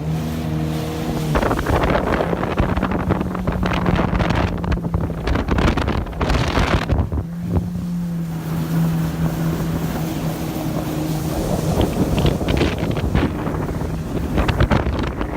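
Jet ski engine running under way, a steady drone, buried in heavy wind buffeting on the microphone and rushing water.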